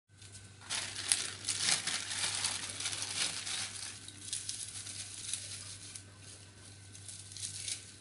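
Plastic packaging crinkling and rustling as a clear zip-lock bag is opened and a bubble-wrapped car charger is unwrapped. It is busiest and loudest in the first few seconds, then gives a few softer rustles later on.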